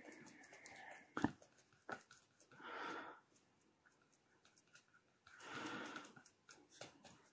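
A person breathing slowly, two long breaths about three seconds apart, with a sharp click about a second in.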